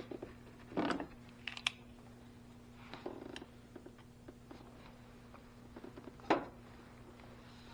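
Short scrapes and clicks of hand work on a car battery cable and its tools, in four or five brief bursts, the sharpest about six seconds in, over a steady low hum.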